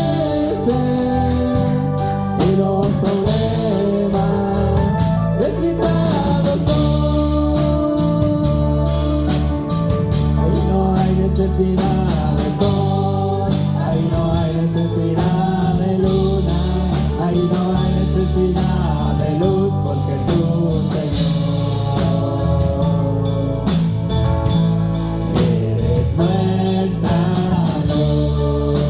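Live worship music: singers over a band with bass and a drum kit, playing a slow gospel-style song.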